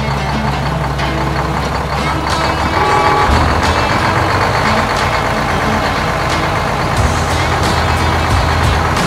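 A heavy vehicle's engine running, a truck or construction-machine sound effect, with a deep rumble that grows louder about three seconds in, over background music.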